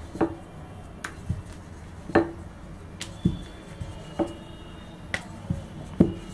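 Wooden rolling pin knocking and clacking against the worktop as poori dough is rolled out: sharp, irregular knocks, about one or two a second.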